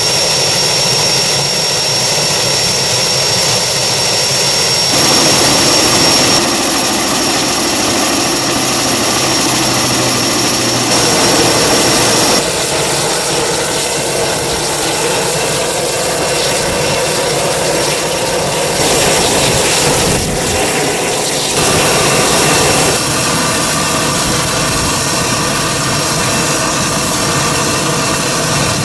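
Agricultural spray plane's engine running close by, a steady loud noise with a high whine, changing abruptly several times.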